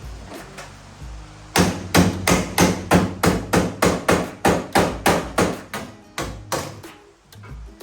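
Hammer blows on car-body sheet metal, a quick run of about fifteen strikes at roughly three a second, starting about a second and a half in and stopping near the end. This is body repair, working a damaged panel back into shape.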